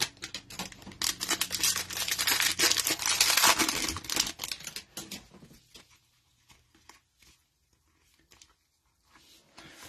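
A foil-wrapped trading-card cello pack being torn open, its wrapper crinkling and ripping for about the first five seconds, then a few faint ticks as the cards are slid out and handled.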